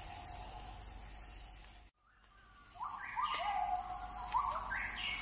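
Birds calling over a steady high-pitched drone. The sound dips out briefly about two seconds in, then short rising calls repeat several times, each stepping up in pitch.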